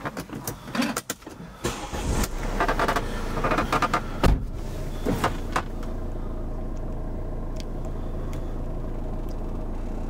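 Mercedes SLK250's engine running at idle, heard inside the cabin as a steady low hum that sets in about two seconds in. Clicks and rustles of handling come before it, and there is a single thump a little later.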